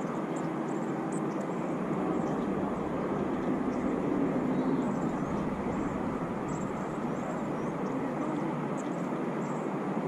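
Steady outdoor background hum like distant traffic, with faint short high chirps scattered through it.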